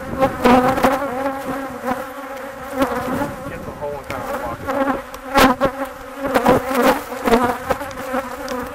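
Honeybees buzzing close around a hive box: a steady hum with a low drone and higher overtones. It is broken by a string of sharp clicks and knocks from a metal tool worked at the hive entrance, the loudest a little past halfway.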